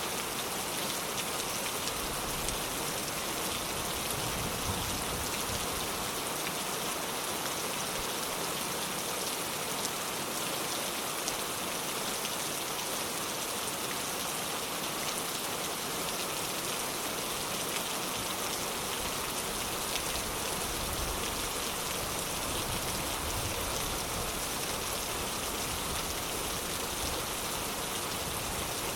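Steady rain falling in a dense, even patter, with a soft low rumble swelling now and then.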